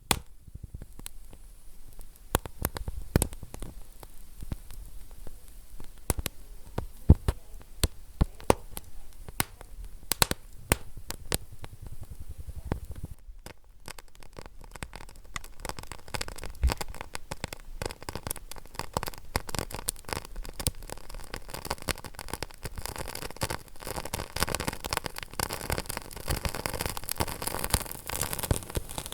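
Wood fire crackling, with irregular sharp pops over a soft hiss. The crackle grows denser in the second half.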